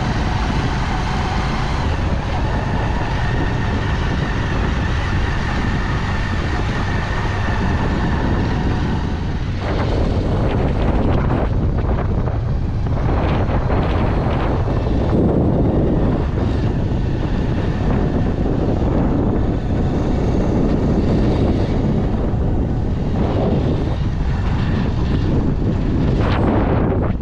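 A vehicle driving along with its engine running steadily, and wind gusting over the microphone, irregular from about ten seconds in.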